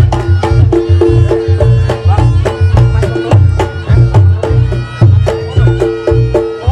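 Reog Ponorogo gamelan music: fast, regular drum and gong strokes under a repeating two-note figure, with a reedy wind melody over it.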